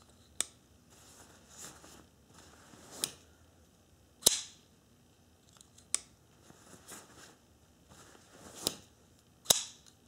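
Willem Steenkamp FLL-13 linerlock flipper knife being drawn from a shorts pocket and handled, giving a series of sharp metallic clicks and snaps as the blade is flipped out and locks, with cloth rustling in between. The loudest snaps come about four seconds in and near the end.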